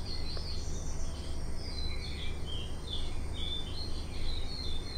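Small birds chirping repeatedly, short high calls scattered throughout, over a steady low hum.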